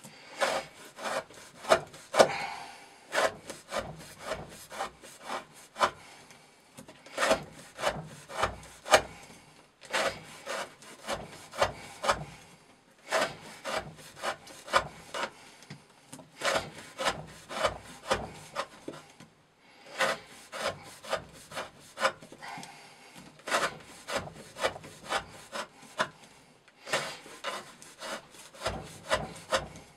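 Chris Reeve Sebenza 21 knife blade (S35VN steel) shaving curls off a wooden stick, one short scraping cut after another. The cuts come about two to three a second, in runs broken by short pauses.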